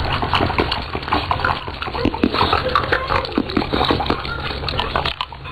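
An animal's sounds mixed with splashing water: many short clicks and splashes, with a few brief pitched cries.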